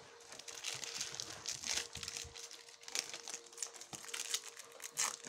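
Foil wrappers of Yu-Gi-Oh booster packs crinkling irregularly as the packs are handled in a stack.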